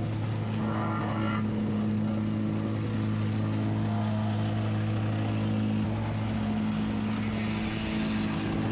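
An engine running steadily at a constant speed, with a strong even hum.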